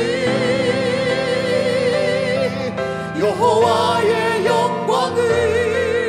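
A man and a woman singing a Korean worship song as a duet. They hold the long last note of the line with vibrato, then begin the next phrase about three seconds in.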